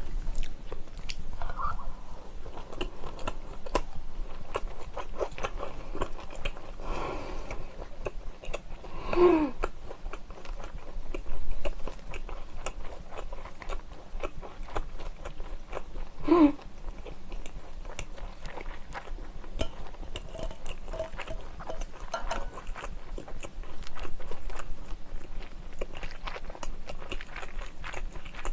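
Close-miked wet chewing of a large mouthful of grilled pork belly, grilling cheese and scallop, with many small mouth clicks and two short hums, about a third of the way in and just past halfway.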